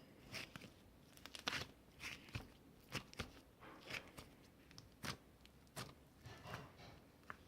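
A series of faint, irregular crunching sounds, about one or two a second.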